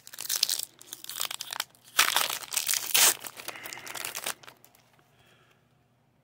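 Foil wrapper of a Pokémon booster pack crinkling and tearing as it is opened, in two spells of rustling, the second starting about two seconds in; the rustling stops a little after four seconds in.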